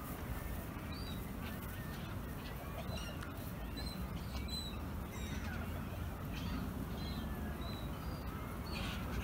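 Wild birds calling: many short, high calls scattered throughout, some dipping slightly in pitch, over a steady low rumble.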